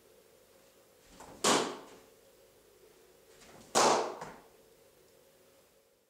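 Two wushu outside crescent kicks, each a short swish of the leg ending in a sharp slap as the foot meets the open palm held out at shoulder height, with a brief echo after each slap; they come about two seconds apart.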